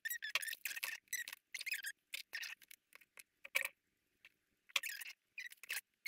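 High-pitched squeaky rustling and scraping in short bursts, with a brief pause a little past halfway, from oyster-shell ornaments with raffia ribbon hangers being handled and moved.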